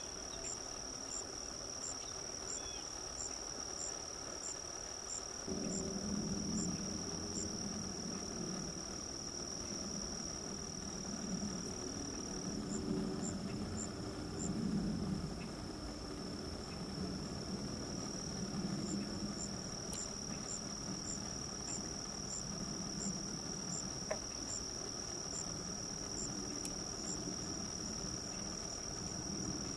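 Insects calling steadily: a constant high-pitched buzz with a separate regular chirp repeating a little under twice a second. About five seconds in, a low rumble comes in underneath and carries on, louder than the insects.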